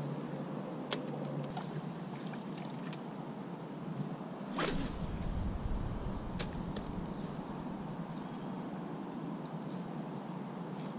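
Light water sounds around a kayak's hull, with a few sharp clicks and a low rumble that starts about halfway through.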